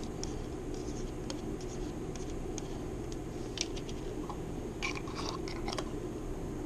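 A metal fork scraping and tapping wet cat food on a paper plate, a scatter of short scrapes and clicks, then scooping food out of a can near the end, over a low steady hum.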